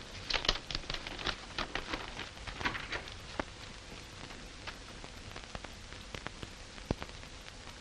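Hiss and crackle of an old optical film soundtrack, with a quick run of small clicks for the first few seconds and then only a few scattered clicks.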